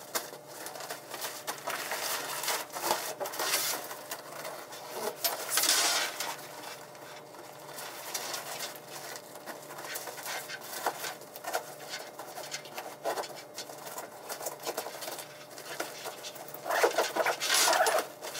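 Nylon fabric of a BCA Float avalanche airbag pack rustling and crinkling as the deflated airbag is folded and stuffed back into its compartment, with irregular scuffs and handling noise. Louder bursts of rustling come about six seconds in and again near the end.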